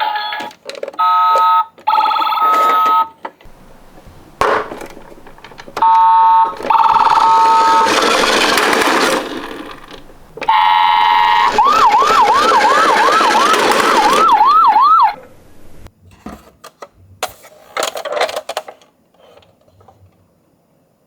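Electronic ambulance siren: short bursts of a two-tone hi-lo siren, then a fast rising-and-falling yelp siren for about three seconds. Between them come stretches of rattling and scattered clicks from toy minicars rolling down a slope.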